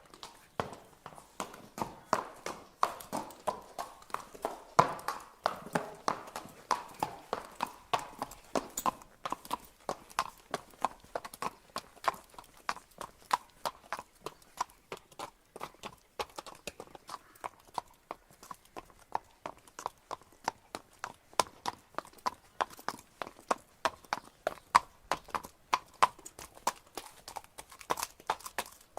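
Horse walking, its hooves striking the ground in a steady clip-clop, a few hoofbeats a second.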